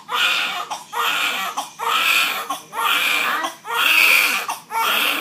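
Infant crying in a rapid run of short wailing cries, about one a second, protesting at having his blanket unwrapped.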